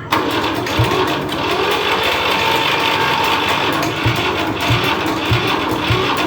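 Restored tractor engine running with a fast, steady mechanical clatter and irregular low thumps, starting abruptly.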